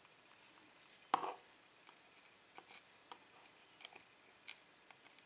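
Small metal lock pins clicking as they are nudged and turned over on a work surface: one sharper click about a second in, then scattered faint ticks.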